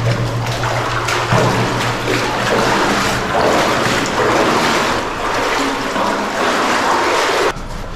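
Footsteps wading and splashing through shallow water, a steady churn of sloshing that breaks off near the end.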